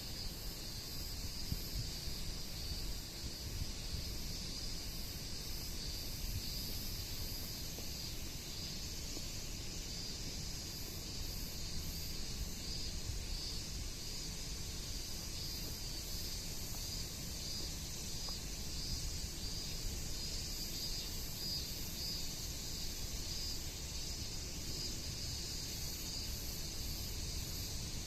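Insects chirring steadily in a high, pulsing drone, over the low rumble of strong wind buffeting the microphone.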